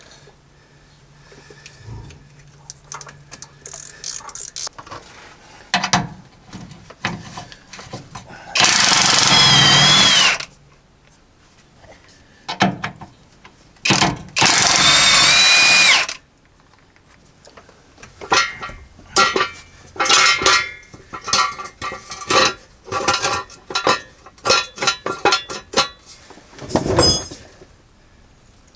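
Impact wrench hammering on a transfer case's top mounting bolts in two long bursts, about nine and fourteen seconds in, trying to break them loose. Then a hand ratchet clicking in short strokes as a bolt is worked out.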